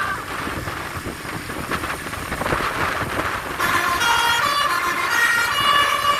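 Rushing noise of wind and road traffic, then about three and a half seconds in a bus's telolet (basuri) multi-tone horn starts playing a melody, stepping from note to note.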